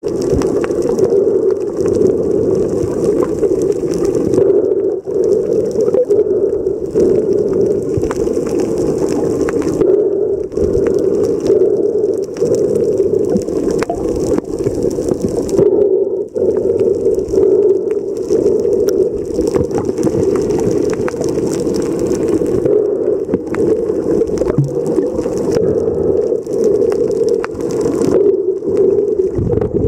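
Muffled underwater ambience picked up by a submerged camera: a steady low hum with faint scattered clicks, and a soft hiss that comes and goes every few seconds.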